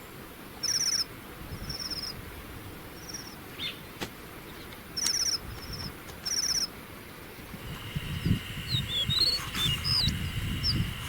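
A small songbird calling in short, high, buzzy trills, four of them spaced a second or more apart. From about eight seconds in, quicker chirps follow and a steady high-pitched tone comes in, with low rumbling underneath.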